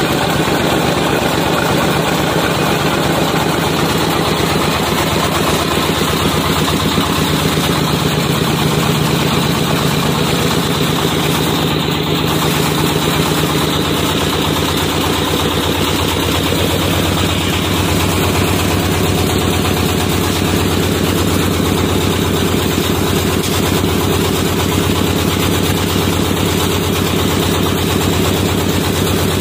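Horizontal single-cylinder diesel engine, about 24–27 hp, running steadily with an even, fast beat while driving a flat-die wood pellet mill.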